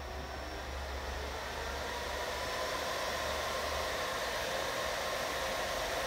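Small 12 V cooling fans on the heat sinks of a homemade Peltier thermoelectric cooler running with a steady whir, growing louder over the first couple of seconds as they come up to speed after being switched on.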